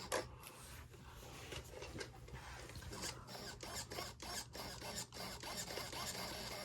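Small RC hobby servo on a model aircraft's elevator being worked in short, jerky movements during a radio test, giving faint scratchy whirring with many small clicks.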